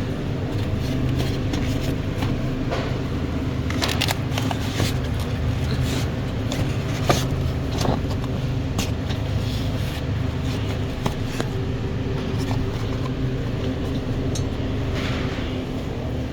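A shopping cart being pushed along a store floor: its wheels roll with a steady rumble, and the wire basket gives occasional clicks and rattles.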